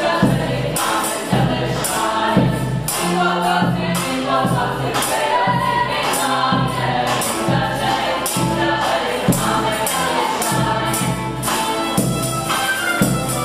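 Background music: a choir singing to a steady percussion beat.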